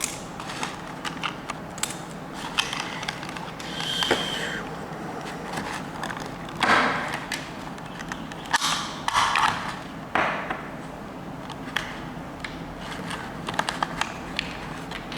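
Small plastic-and-metal clicks and rattles from a Beyblade spinning top being handled and taken apart, with a few short rustling bursts of packaging.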